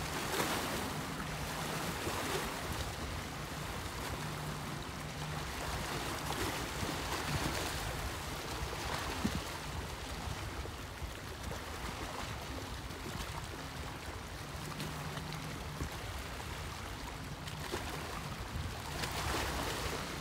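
Small waves lapping and splashing against a rock shoreline, swelling every few seconds, with wind on the microphone.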